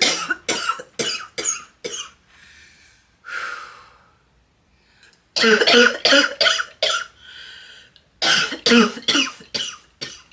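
A girl coughing in three fits of about five quick, harsh coughs each, with short pauses between the fits.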